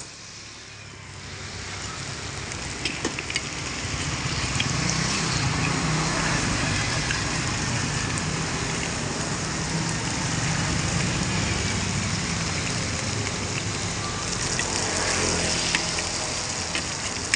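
Bánh xèo batter sizzling in oil in a hot pan over a gas stove, growing over the first few seconds and then holding steady, with a low rumble underneath and a few light ticks of a metal spatula.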